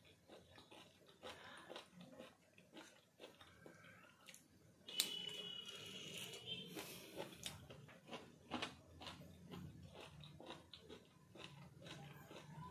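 Faint close-up chewing and biting: a person eating by hand from a steel plate, with many small mouth clicks. About five seconds in, a sudden louder noise with a high whistle-like tone lasts about two seconds.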